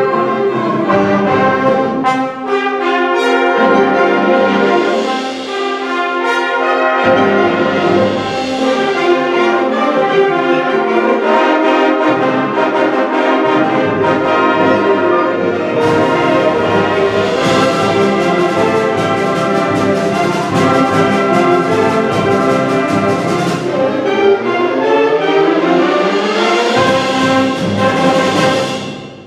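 A school concert band playing a loud, brass-heavy closing passage, with rising runs near the end and the final chord released just before the end.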